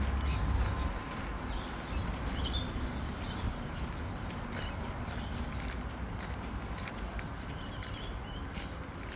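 Outdoor nature ambience: a steady hiss with a low wind rumble in the first second, and scattered short high-pitched ticks and chirps, a small cluster about two and a half seconds in and another near the end.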